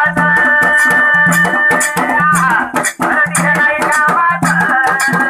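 Dhangari ovi folk music: a large dhol drum beaten in a steady rhythm under bright jingling metal percussion, with a high held melodic line over it that slides down about halfway through and starts again.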